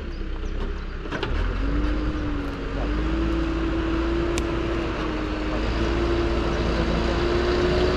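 Backhoe loader's diesel engine running as the machine drives closer over dirt, a steady drone that dips briefly about a second in, then holds and grows a little louder.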